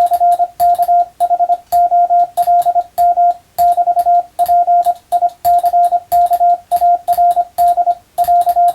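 Morse code (CW) sent on a telegraph key: a single steady beep tone keyed on and off in dots and dashes, grouped into characters with short gaps, with a faint click at each keying edge.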